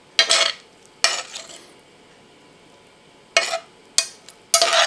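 A metal fork stirring and scraping fusilli pasta and vegetables on a ceramic plate, in five short strokes.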